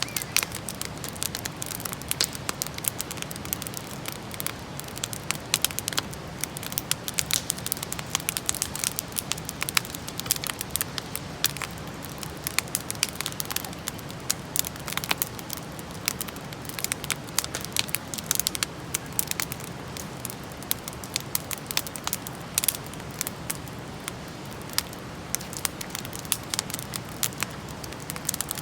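Wood campfire burning, with many irregular sharp crackles and pops over a steady low hiss.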